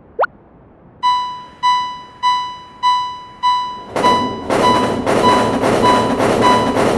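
A short rising glide like a cartoon sound effect, then about a second in a railroad crossing's warning bell starts ringing, about one and a half evenly spaced dings a second, each dying away. Around four seconds in a dense, noisy layer joins the bell.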